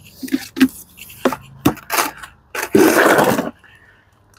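Gloved hands scooping and handling coarse potting mix by an empty plastic nursery pot: a series of short scrapes, then a louder rush of soil lasting under a second about three seconds in.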